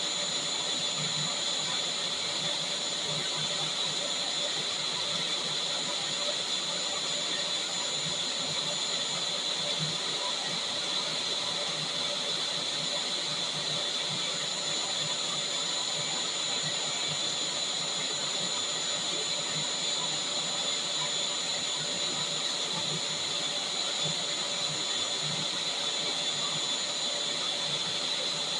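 Vacuum cleaner running steadily: a constant rush of air with a steady high-pitched motor whine over it.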